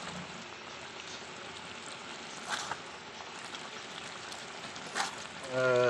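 Mutton curry frying in a pan: a steady sizzle, with a couple of light clicks.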